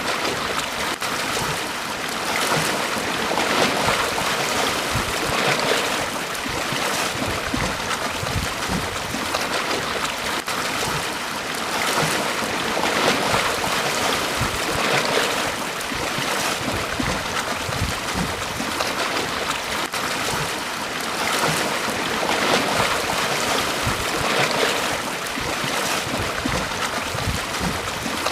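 Small sea waves breaking and washing up a beach, a steady wash of surf that swells with each incoming wave every few seconds.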